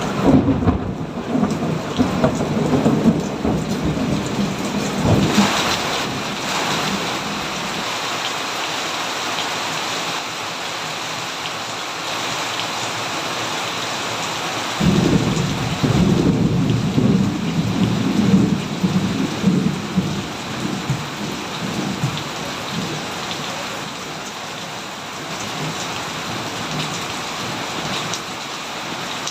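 Steady rain falling, with two long rolls of thunder: one rumbling at the start and fading out by about seven seconds in, another breaking in about fifteen seconds in and dying away by about twenty-one seconds.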